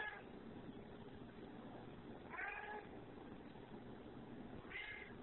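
Domestic cat meowing three times: a brief meow, a longer one about two seconds in, and a short one near the end.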